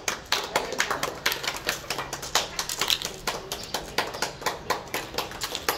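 Dried chickpeas and peas dropped by hand into thin plastic cups while being sorted, making a quick run of small clicks, several a second.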